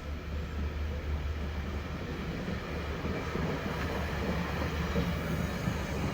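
Metro-North passenger train with a P32AC-DM locomotive, moving through the station with a steady low rumble.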